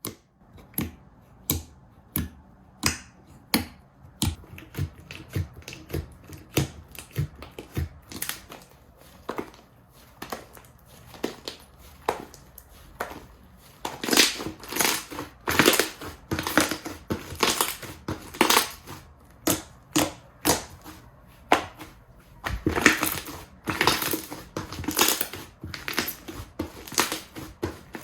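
Slime being squeezed and pressed by hand, giving a run of irregular clicks and pops that come sparsely at first, then thicker and louder from about halfway through.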